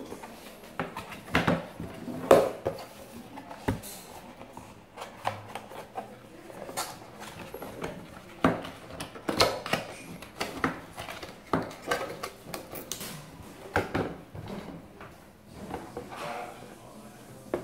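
Handling noise from a slim external DVD writer: its plastic case and USB cable being turned over and moved in the hands, giving irregular clicks and knocks.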